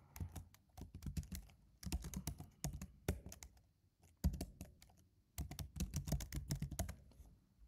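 Typing on a computer keyboard: rapid key clicks in about five quick bursts with short pauses between them.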